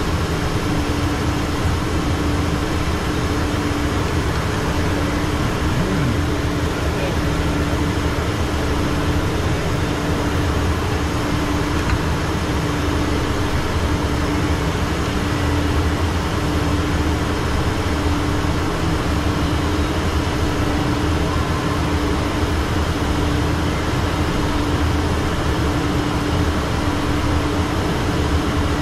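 Steady cockpit noise of a Learjet in flight: a constant rush of airflow and jet engine noise with a steady droning hum underneath.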